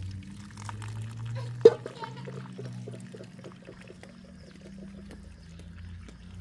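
Liquid being poured, with a run of quick, evenly spaced pulses like glugging, and one sharp loud knock about a second and a half in.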